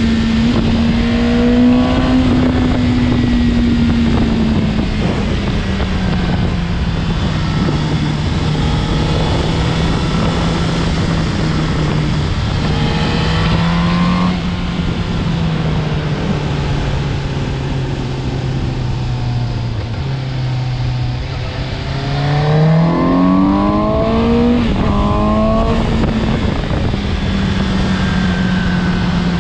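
Suzuki GSX-S750's inline-four engine running at road speed over a steady rush of wind. The revs ease down slowly through the first two-thirds, climb quickly about two-thirds of the way through as the throttle opens, then settle at a steady pitch.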